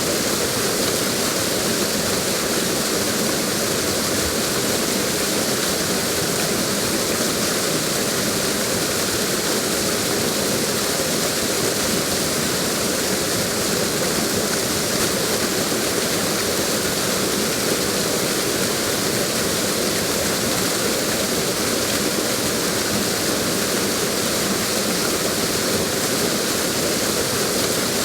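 Waterfall: water pouring steadily over a drop, an even, continuous rush with no change.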